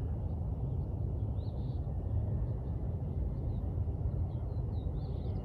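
Outdoor ambience: a steady low rumble with faint, scattered high chirps.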